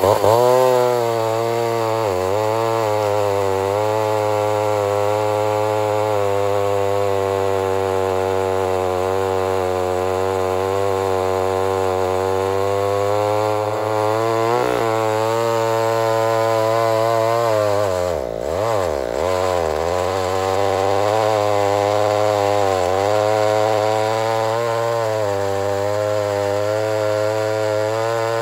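Vintage 68cc Lombard two-stroke chainsaw held at full throttle while cutting down through a large log round. Its engine note sags briefly several times under load and picks back up, most deeply about eighteen seconds in.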